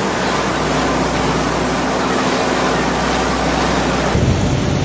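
Steady machine noise of a food-processing line, with a low hum, as a mesh conveyor drops puffed fried snack balls into a steel tray. The noise changes character abruptly about four seconds in.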